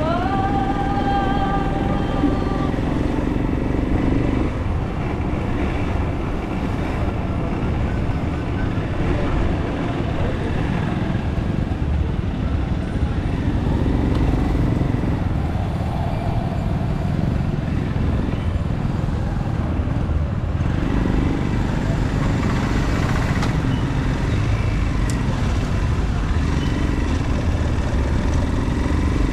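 Motorcycle running through slow town traffic, with steady road and wind noise. A short tone glides up and holds during the first couple of seconds.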